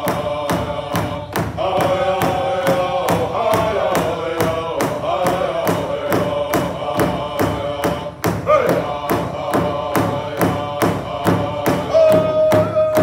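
Powwow drum group: several men striking a large hide powwow drum together in a steady, even beat of about three strokes a second while singing in unison in high, held notes. The singing breaks briefly a little past eight seconds in and comes back on a high note.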